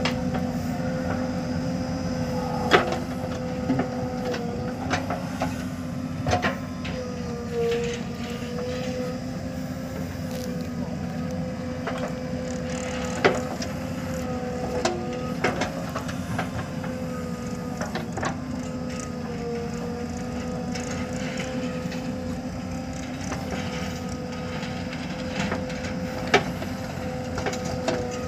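JCB 3DX backhoe loader's diesel engine running steadily under hydraulic work, its pitch dipping briefly every few seconds as the arm and bucket take load. A few sharp knocks come from the bucket digging soil and dumping it into the tractor trolley.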